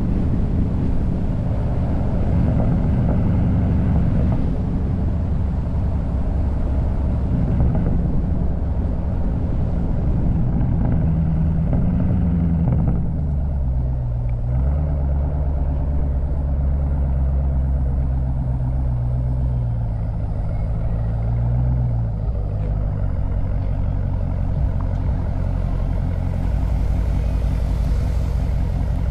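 Mopar 392 (6.4-litre HEMI V8) engine running through its exhaust, steady and low-pitched, with the note lifting and settling back twice, about twelve and twenty-two seconds in.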